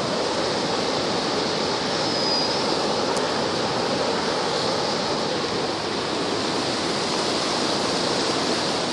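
Pecos River in flood, its high, fast water rushing steadily.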